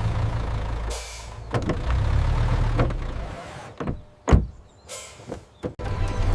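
Cartoon machine sound effects: a steady low engine-like rumble with a short hiss of air about a second in. It fades, and then come several sharp mechanical clanks, the loudest a little past the middle, with another brief hiss between them.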